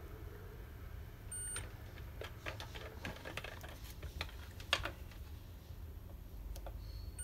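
Scattered light clicks and knocks of a small electric door-lock motor being freed from a metal bench vise and handled while multimeter probes are put on its terminals, the sharpest knock just before five seconds in. A short high beep sounds about a second and a half in.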